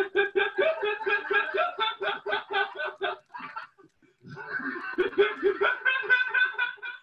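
Men laughing hard and uncontrollably in rapid, rhythmic 'ha-ha-ha' pulses, about five a second. The laughter breaks off for about a second past the middle, then starts up again.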